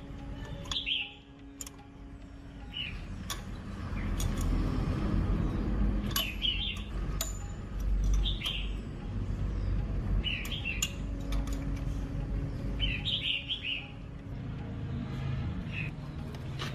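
Small birds chirping in short bursts every second or two, over a low rumble that grows louder about four seconds in and eases near the end, with scattered sharp clicks.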